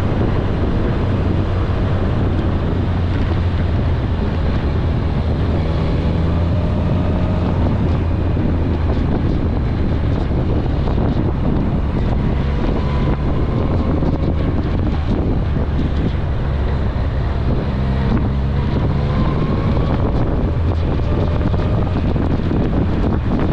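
Kawasaki ZRX1100's inline-four engine running as the motorcycle cruises, its note shifting up and down a little a few times, under steady wind rush on the microphone.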